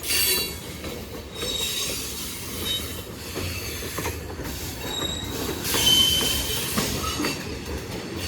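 Freight cars of a long Norfolk Southern freight train rolling past: a steady rumble of wheels on rail, with high thin wheel squeals that come and go and occasional clicks at the rail joints.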